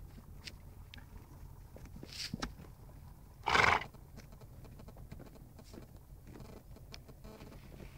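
A horse snorts once, loudly, about three and a half seconds in: a short blast of air through the nostrils as it noses at a dog. A softer burst comes about two seconds in.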